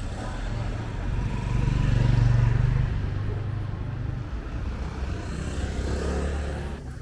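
Street traffic: a car passes close by, loudest about two seconds in, then another vehicle's engine draws near with a rising note toward the end before the sound cuts off.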